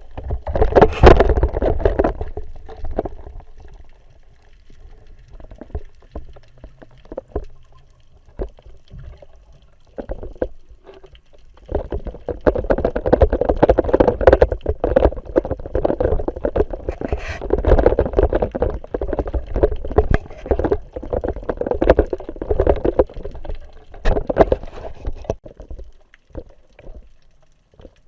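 Water sloshing and gurgling against a waterproof action-camera housing in the sea, in uneven surges, with a quieter stretch a few seconds in and the loudest churning in the second half.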